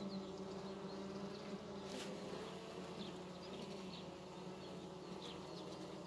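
Carpathian honeybees buzzing at an open hive, a steady, even hum of the whole colony.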